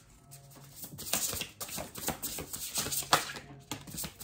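A deck of oracle cards being shuffled by hand: a quick, uneven run of soft card clicks and flicks that starts about a second in.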